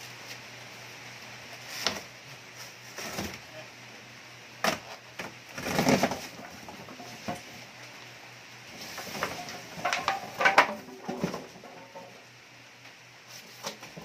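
A large cardboard carton scraping and rubbing as it is lifted and pulled off a twin-tub washing machine and its styrofoam packing, with scattered knocks, a dull thump about halfway through and a cluster of scrapes and knocks a few seconds later.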